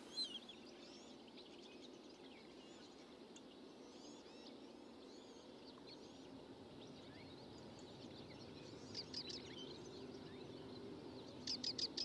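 Faint wild birdsong: scattered short, high chirps and calls of small birds, with quick runs of louder chirps about nine seconds in and again near the end, over a faint steady background noise.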